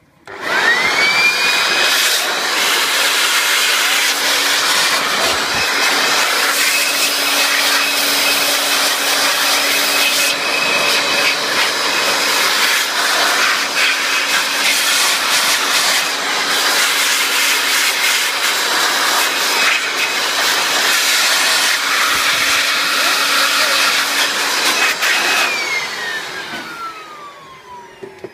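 Vacuum cleaner switched on, its motor whine rising to a steady high pitch within about a second, then running steadily with a rush of air and scattered short knocks. About 25 seconds in it is switched off and the whine falls away as the motor winds down.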